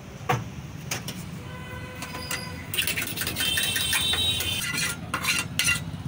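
Metal tongs clinking and scraping against frying pans on a gas stove. There is a sharp clank about a third of a second in, then a run of clattering with ringing metal tones from about three to six seconds in, over a steady low hum.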